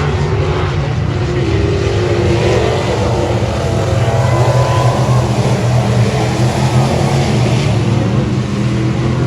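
Race car engine running hard at steady high revs, its pitch wavering only slightly.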